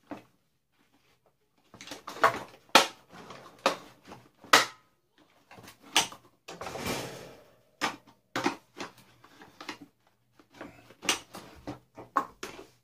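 Hard plastic parts of a Dyson DC41 vacuum cleaner being handled and taken apart: irregular clicks, knocks and rattles, with a longer scraping rattle about seven seconds in.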